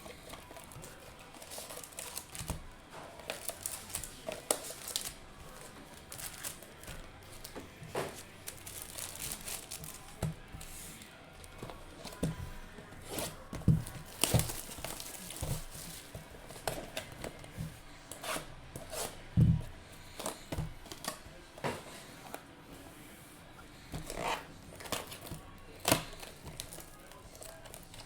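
Foil trading-card pack wrappers being torn open and crinkled, in irregular rustles and crackles, with a few sharper tears among them.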